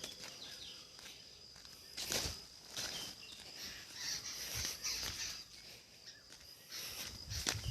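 Footsteps of someone walking outdoors: a few uneven steps scattered through the clip. Behind them runs a steady high-pitched buzz, with short high chirps.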